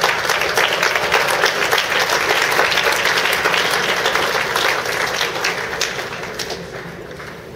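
Audience applauding, a dense patter of many hands that dies away over the last second or two.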